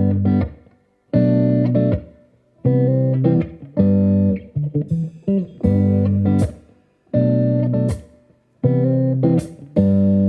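Background music: plucked guitar chords in short phrases that stop and start about every second and a half.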